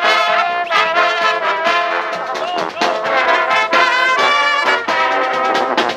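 Marching Bavarian-style brass band playing oompah music: trumpets and other horns over a tuba, with drum beats.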